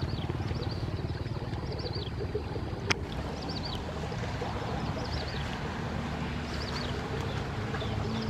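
A small engine running steadily, with short high chirping bird calls repeating about once a second and a single sharp click about three seconds in.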